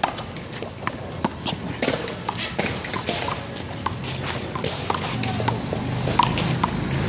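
A one-wall handball rally: sharp, irregular smacks of the small rubber ball off hands, wall and court, with footsteps on the court.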